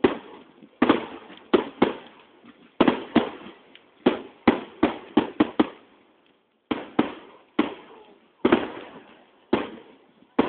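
Fireworks exploding in a rapid, irregular string of sharp bangs, about twenty of them, each with a short echoing tail, with a brief pause about six seconds in.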